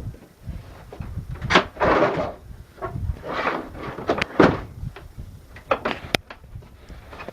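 Irregular knocks, bumps and scrapes of people climbing up through the church toward the bell. There is a drawn-out scrape about two seconds in, the loudest bang a little after four seconds, and a few sharp clicks near the end.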